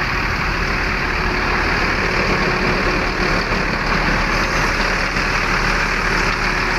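Bus diesel engine running steadily with a low rumble and a faint steady whine over it.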